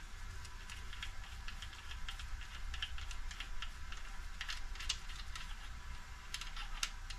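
Light metallic clicks and taps of a connecting-rod bearing shell and rod cap being worked loose by gloved fingers in a BMW N55 engine block, with a few sharper clicks past the middle and near the end.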